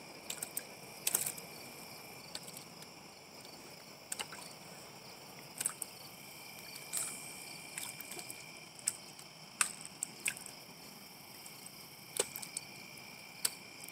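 Crickets and other insects trilling steadily, a high thin chorus, with about eight sharp clicks scattered through.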